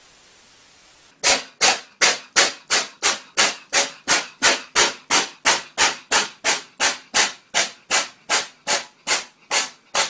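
A second of faint static hiss, then a steam locomotive's exhaust chuffing in a fast, even rhythm of nearly three chuffs a second. The locomotive is Santa Fe 3751, a 4-8-4 steam engine.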